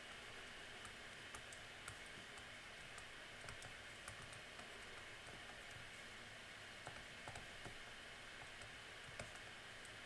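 Faint, irregular clicks of a stylus tapping on a tablet screen while numbers are handwritten, over a steady low hiss.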